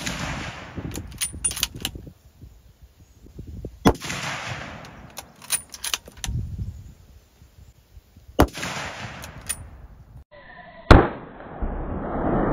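Three shots from a .270 Winchester bolt-action rifle, a Winchester Model 70 Featherweight with a 22-inch barrel. The first two come about four seconds in and about four and a half seconds later, with the clicks and clacks of the bolt being worked between them. The third crack, about eleven seconds in, is the loudest.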